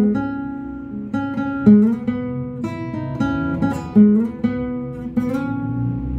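Nylon-string classical guitar played fingerstyle, plucked bass notes moving under chords, with several new notes each second.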